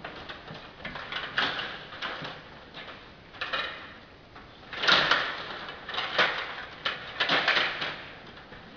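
Stiga table hockey game in play: control rods sliding and twisting in the table and plastic players and puck clacking, an irregular clatter with louder bursts about five seconds in and again around six to seven seconds in.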